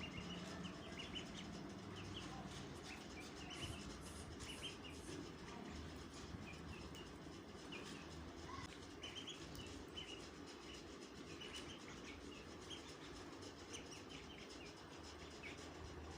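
Baby birds peeping: many short, high chirps in quick scattered runs over a steady background noise.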